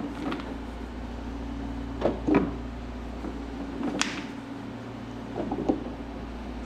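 Spark plug wires being handled and sorted: a few light knocks and one sharp click over a steady low background hum.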